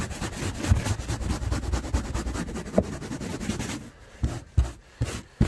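Stiff plastic-bristled hand brush scrubbing quickly back and forth over car carpet, working out embedded dog hair. It makes a fast rasping rub, and near the end it slows to a few separate strokes.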